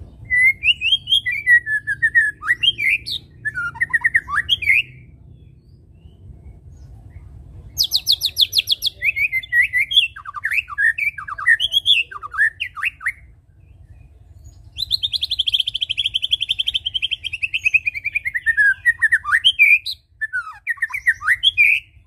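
White-rumped shama (murai batu) singing in three long phrases separated by short pauses: rapid, varied whistles and sweeping notes. The last phrase opens with a fast trill that slowly falls in pitch before breaking into varied notes again.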